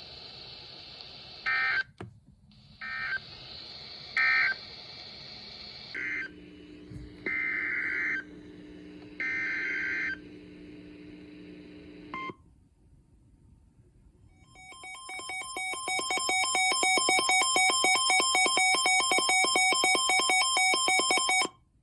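Emergency Alert System tones. First comes a series of short two-tone digital data bursts, the SAME code bursts that end one alert and head the next. After a short pause the EAS two-tone attention signal swells in, holds steady for about seven seconds, and cuts off.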